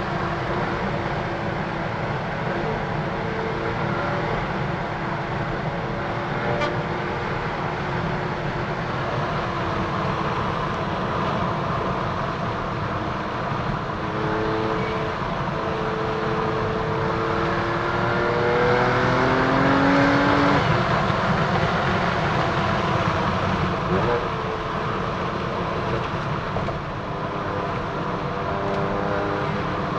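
BMW F80 M3's twin-turbo inline-six with an M Performance exhaust and secondary cat delete, driving under way: the engine note rises and falls with the revs, climbing and getting louder about two-thirds of the way in.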